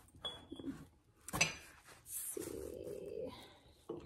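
Thrift-store items being rummaged through and lifted out for inspection: soft handling rustles, a sharp knock about a second and a half in, then about a second of dull scraping.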